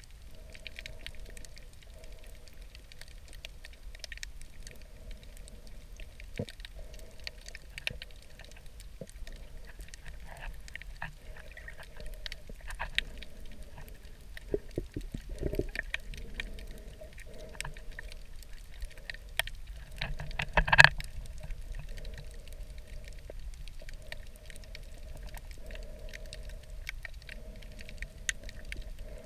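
Underwater ambience picked up by a waterproof camera: a low rumble and a hum that comes and goes, with many scattered sharp clicks and crackles. One louder knock comes about 21 seconds in.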